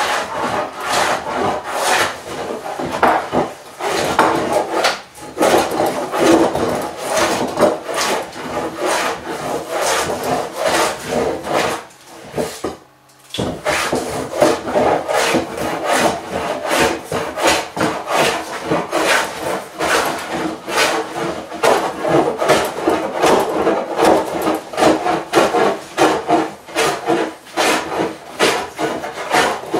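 A No. 6 bench plane taking rapid, repeated strokes diagonally across a thick rough-sawn slab, the iron shaving and scraping the wood as the cupped centre and high corner are flattened. The strokes break off briefly about thirteen seconds in, then carry on.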